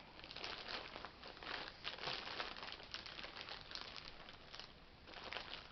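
Faint, irregular crinkling and rustling of a brown ration bag's packaging being handled.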